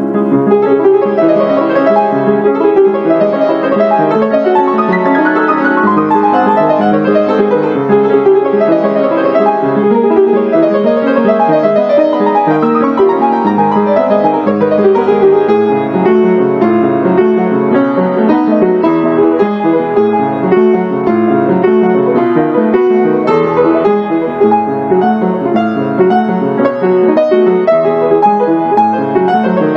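Background piano music, a continuous flow of notes at a steady level.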